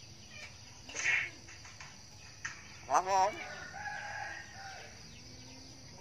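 Common hill myna calling: a short harsh squawk about a second in, then a louder wavering call near three seconds that runs into a held steady note.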